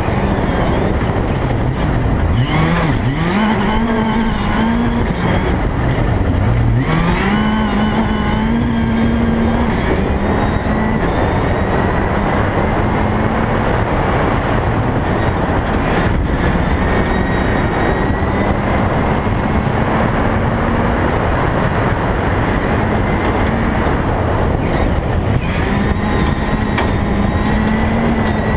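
Rally car driven hard on a gravel road: the engine note climbs steeply twice in the first seven seconds, then holds high with small dips, over constant tyre and gravel noise. A few sharp knocks cut through, from stones or bumps.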